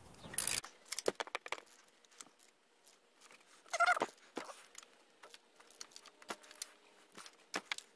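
Scattered light clicks and rustles of a hand working in a car's engine bay, turning a new coolant temperature sensor into its housing by hand, with one louder brief rasp about four seconds in.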